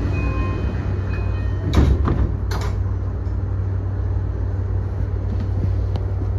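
Standing E235-series commuter train with its sliding doors closing: two short, sharp noises about two seconds in, over the train's steady low electrical hum.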